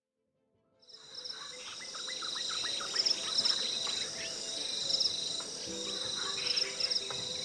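Tropical rainforest ambience fading in about a second in: a steady chorus of insects in several high layers, with pulsing trills every second or two and scattered short bird calls.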